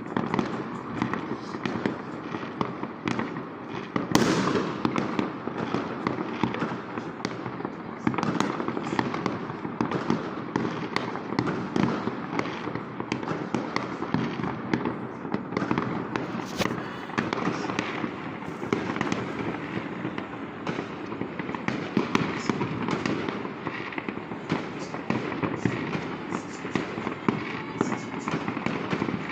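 Fireworks and firecrackers going off in a dense, continuous barrage of overlapping bangs and crackles, with one especially loud bang about four seconds in.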